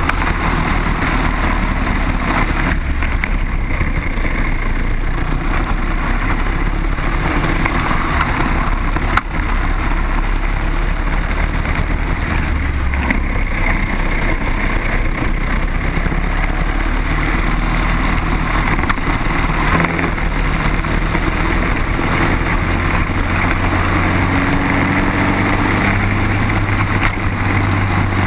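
Briggs & Stratton four-stroke kart engine, heard onboard at racing speed. The engine note drops and rises several times as the kart lifts for corners and accelerates out of them. There is a single short click about nine seconds in.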